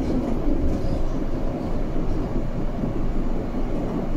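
Steady rumble and rattle inside a Berlin U-Bahn A3L71 train.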